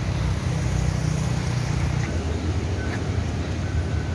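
Steady low rumble of city street traffic, mixed with wind on the microphone.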